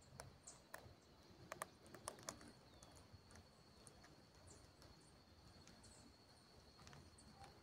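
Near silence: faint ambience with a few soft ticks in the first couple of seconds and a thin, steady high-pitched tone underneath.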